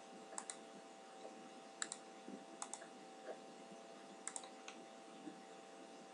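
Faint clicks of a computer mouse: four press-and-release pairs of clicks and a few single ones, over a steady faint hum.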